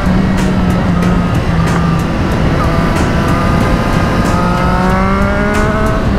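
Triumph Street Triple RS 765 cc inline-triple with a Yoshimura Alpha T exhaust, heard from the rider's seat while riding, the engine note rising steadily through the last few seconds as it pulls. Heavy wind noise on the microphone.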